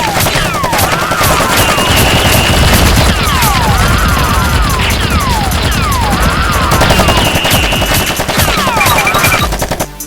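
Rapid automatic gunfire sound effect, a continuous volley of shots. Falling whistles and a warbling tone recur over it about every three seconds, and it drops away near the end.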